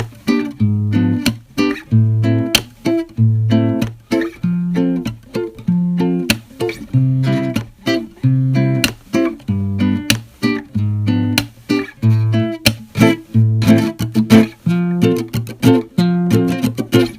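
Background music: a plucked acoustic guitar playing picked notes over a steady bass line.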